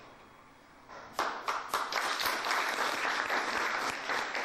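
Audience starts applauding about a second in, many hands clapping together.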